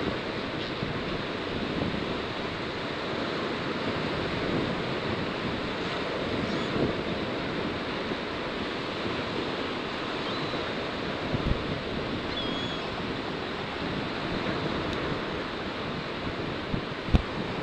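Surf washing on a beach, a steady rushing noise with wind buffeting the microphone. A couple of faint high chirps come through midway, and a short thump near the end.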